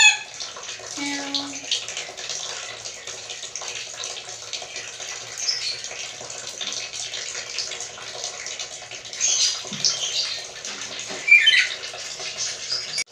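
Black-capped lory giving occasional short calls: a brief call right at the start and another about a second in, then a few short high squawks near the end, the loudest about 11 seconds in. A steady hiss runs underneath.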